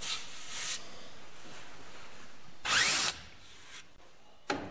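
A hand brushes across a wooden timber joint, then a power drill gives a short burst about three seconds in, its pitch rising as it spins up. A second, briefer noise comes near the end.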